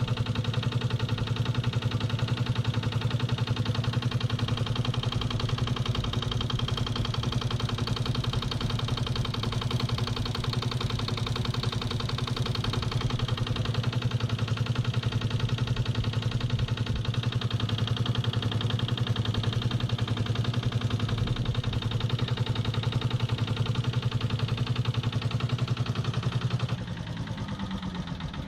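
Detroit Diesel 1-71 single-cylinder two-stroke diesel engine running steadily with fast, even firing pulses. It drops in level and falls away near the end.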